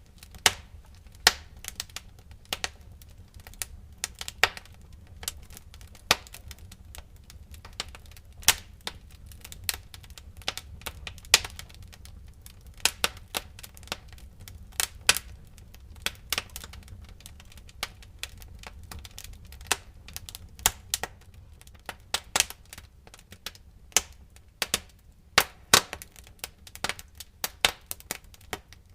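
Wood fire crackling in a fireplace: irregular sharp pops and snaps, several a second and uneven in loudness, over a low steady rumble.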